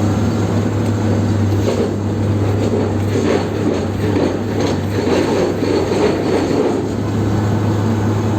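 Heavy machine running with a steady low hum, and irregular clattering and knocking through the middle few seconds.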